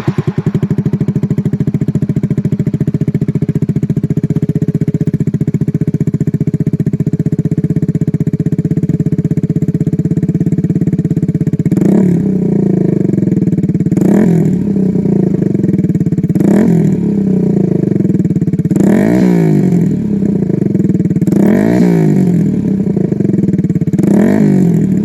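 Kawasaki Z125 Pro's 125 cc single-cylinder four-stroke engine idling steadily through an aftermarket iStunt exhaust with its baffle still in. About halfway through, the throttle is blipped six times, each rev rising and falling back to idle.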